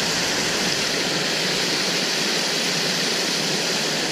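A small concrete dam spillway, with stream water pouring over it into a pool: a steady, even rush of falling water.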